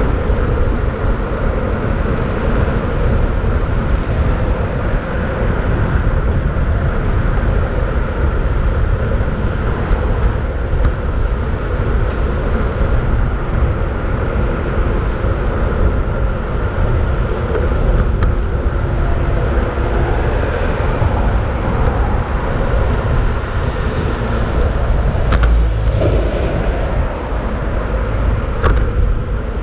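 Steady loud rumble of city traffic and wind on the microphone during a bicycle ride, with a few sharp clicks in the second half.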